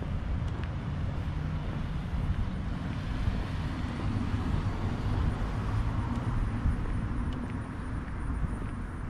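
Downtown street ambience: a steady low rumble of road traffic.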